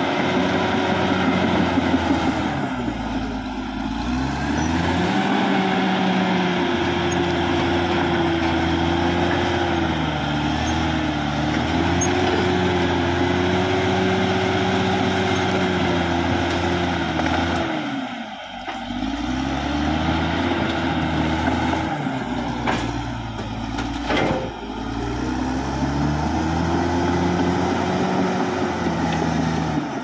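Caterpillar D6R XL bulldozer's diesel engine running hard while the dozer pushes brush and felled trees, its note dipping and recovering several times as the blade takes load. A few short sharp knocks come a little past two-thirds through.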